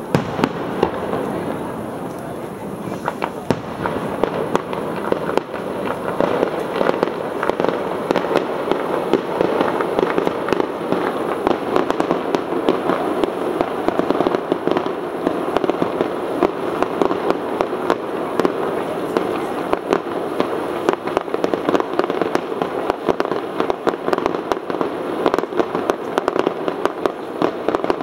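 Fireworks display going off continuously, a rapid dense stream of bangs and crackling pops that grows busier a few seconds in.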